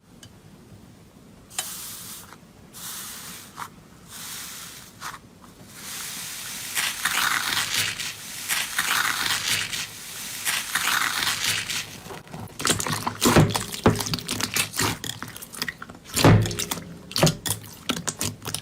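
Slime being worked by hand, squished, stretched and scraped, with a crackly, wet texture. The last few seconds hold a quick run of sharp pops and clicks.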